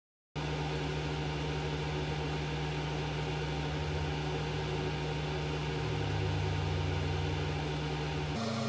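LaserPecker 4 laser engraver with its rotary extension running: a steady hum carrying several low steady tones, which shifts to a different, higher tone near the end.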